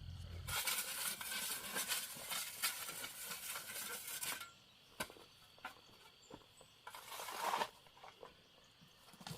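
Dry rustling and crinkling for about four seconds, then a few sharp clicks and a shorter burst of rustling later on.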